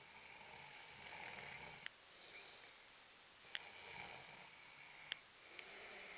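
A person asleep and snoring: several slow snoring breaths that swell and fade, with a few short sharp clicks between them.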